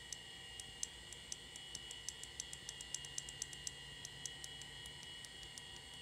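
Small tactile push-button on a POST card's external LED display being clicked repeatedly, a few quick clicks a second, stepping the readout through POST codes. A faint steady high whine runs underneath.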